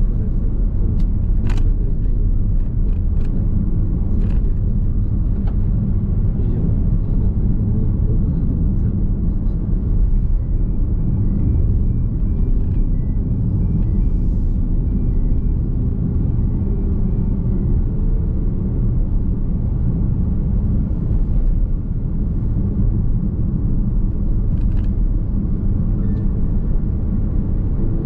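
Steady tyre and road rumble inside the cabin of a Nissan X-Trail Hybrid while driving, with a few brief clicks.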